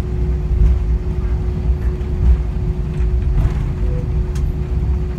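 Airbus A320 cabin noise while taxiing after landing: a steady low rumble from the idling engines and airframe, with a steady droning hum above it.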